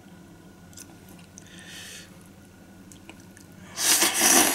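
A person eating ramen hotpot: quiet chewing, then near the end a loud, noisy slurp lasting under a second.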